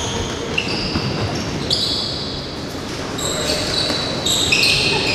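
Basketball sneakers squeaking in short, high-pitched chirps on a hardwood gym floor as players run and cut, with a basketball thudding on the floor a few times. The sound echoes in a large gym.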